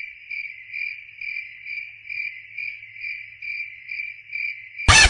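Cricket chirping sound effect: a steady high chirp pulsing about twice a second, the comic cue for an awkward silence. It cuts off suddenly near the end as a loud burst of noise hits.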